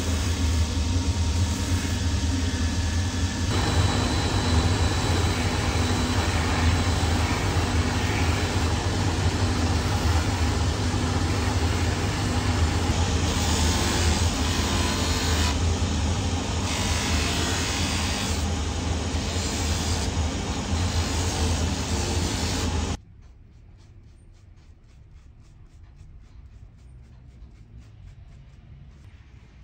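Shoe finishing machine running with a steady low motor hum while the edge of a new leather sole is pressed against its spinning sanding and trimming wheels, grinding and scraping. The machine noise stops abruptly about three-quarters of the way through, leaving only a faint low background.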